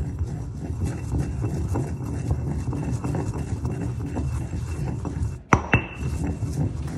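Stone pestle grinding and knocking round a granite mortar: a dense, continuous run of gritty scraping and small clicks, with one louder knock about five and a half seconds in.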